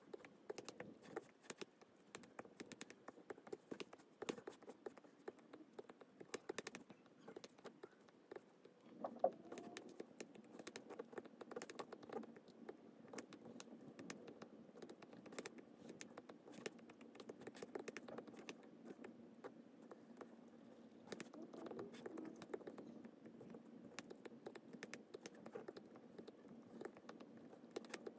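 Stylus tip tapping and sliding on a tablet's glass screen: many faint, quick clicks with light scratching, and one sharper click a little after nine seconds.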